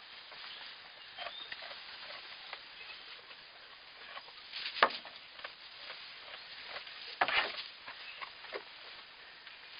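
Newborn myotonic goat kids moving about in straw bedding: light rustling and hoof patter, with two louder knocks, one about halfway through and one about three-quarters of the way through.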